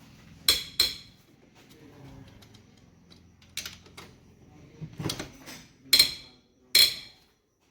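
Metal tools and engine parts clinking and clanking against each other during engine reassembly: about six sharp, separate metallic knocks, the loudest a little after the middle.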